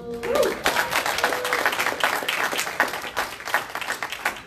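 A small audience clapping and applauding, thinning out toward the end, with a brief shout from the crowd about half a second in.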